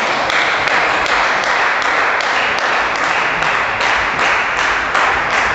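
Crowd applause with spectators clapping in unison, a steady beat of about two to three claps a second over a continuous wash of clapping.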